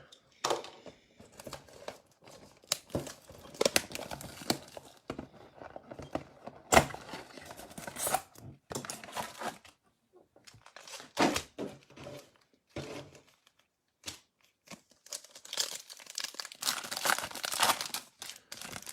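Card-pack and box packaging being torn open and crinkled, with the cards handled, in irregular bursts with short pauses.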